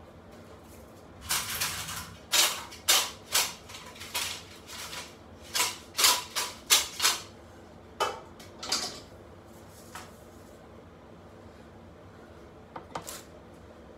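Aluminium basin and cooking pot clattering as they are handled: a run of sharp, irregular knocks and scrapes for about eight seconds, then a couple of faint clicks near the end.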